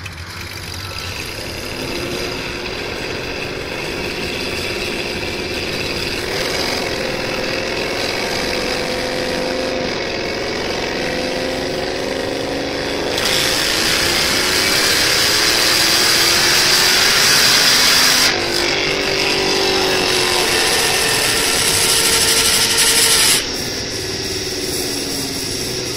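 Supercharged 5.4-litre V8 of a Ford F-150 SVT Lightning running on a chassis dyno during a full-power pull, its pitch climbing as it revs up under load. It is loudest from about halfway, with a brief dip in the middle of that stretch, and cuts off sharply near the end as the throttle is closed.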